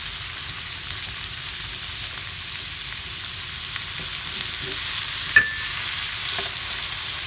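Sliced bitter melon and meat sizzling steadily as they fry, with one sharp clink a little past the middle.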